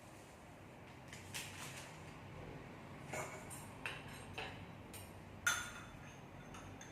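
Scattered light clinks and knocks of kitchenware being handled during food preparation: about six short, sharp strikes, the loudest about five and a half seconds in.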